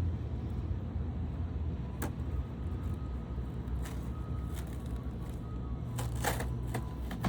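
Cardboard gift box being torn and opened: a few short scratchy rips, the loudest cluster about six seconds in, over a steady low rumble.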